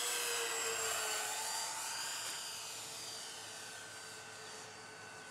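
RC model B-26 bomber's twin motors and propellers whining in flight on a close pass, the pitch dropping slightly about a second in as it goes by, then fading steadily as it flies away.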